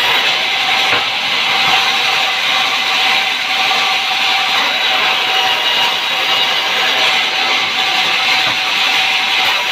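Sawmill saw cutting through a log, a steady hissing whine that holds level throughout.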